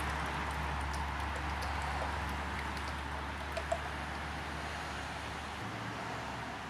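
Water pouring steadily from a glass bottle into the plastic water tank of a Makita CC301D cordless glass and tile cutter, over a steady low hum.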